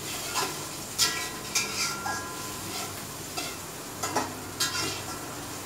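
A spatula stirring food in a hot pan, scraping and clanking against it several times with short metallic rings, over a steady frying sizzle.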